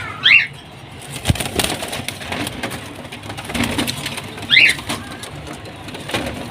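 Lutino cockatiels chirping, with a short call just after the start and another about four and a half seconds in. Scattered clicks and rustling run between the calls.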